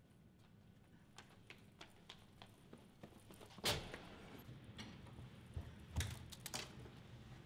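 Hurried footsteps, a run of light ticks about three a second, with one loud knock about halfway through and two more knocks near the end as someone drops into a desk chair and grabs a computer mouse.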